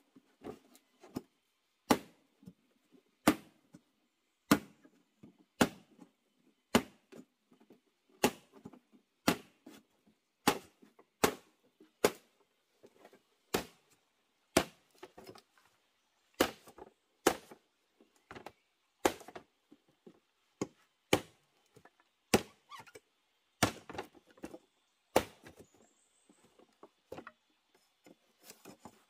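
Machete chopping into bamboo: repeated sharp, woody chops, roughly one a second, with lighter taps between some strokes.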